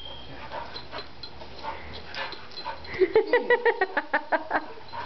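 Pit bull giving a quick run of about ten high yips in excited play, about three seconds in.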